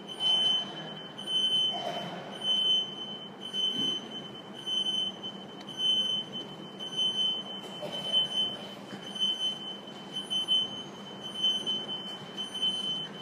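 A high-pitched electronic beeper, an alarm-type buzzer, sounding short beeps at about two a second, steady and unchanging, over faint room noise.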